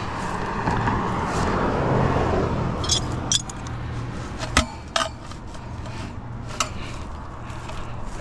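Threaded black steel pipe sections knocking and clinking together as they are gathered up, a handful of sharp metallic knocks with the loudest, ringing one about four and a half seconds in, over a steady low rumble.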